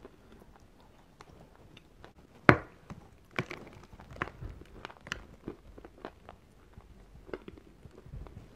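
Teeth biting into a block of eating chalk: one sharp snap about two and a half seconds in as a piece breaks off, then crisp crunching as the chalk is chewed.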